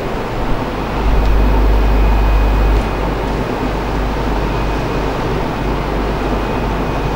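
Steady background noise of the room, with a low rumble that swells for about two seconds near the start, then settles back.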